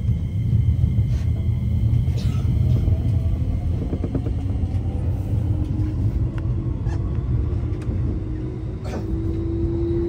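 Electric commuter train heard from inside the carriage as it pulls away from a station: a steady low rumble of the running train, with a motor whine that rises slowly in pitch from about halfway through as the train gathers speed.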